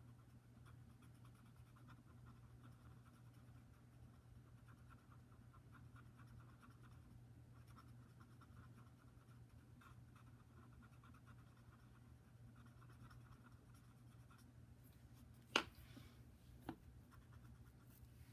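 Faint scratchy rubbing of a paper blending stump worked over paper in short repeated strokes, above a steady low hum. Near the end, two sharp clicks about a second apart; the first is the loudest sound.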